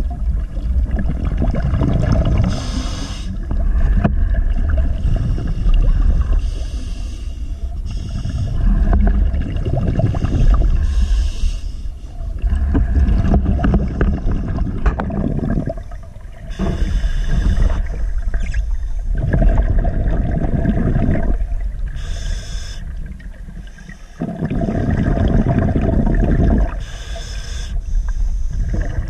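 Underwater sound picked up by a submerged camera: a steady muffled rumble of water and movement, with a short hissing burst of the diver's breathing about every four to five seconds.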